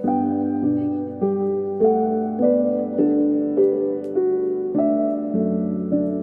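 Background piano music: a slow, gentle melody with a new note or chord struck about every 0.6 seconds, each fading before the next.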